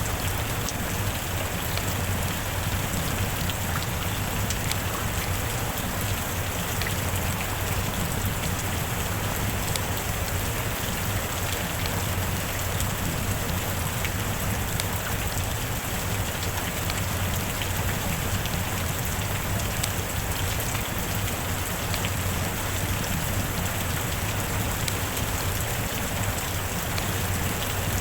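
Steady heavy rain falling, an even unbroken hiss with scattered individual drop ticks.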